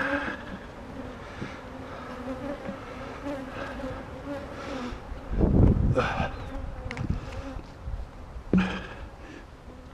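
Honeybees buzzing around an opened hive, a steady hum throughout. About five seconds in a louder dull knock of handling noise rises over it, with a couple of short clicks later.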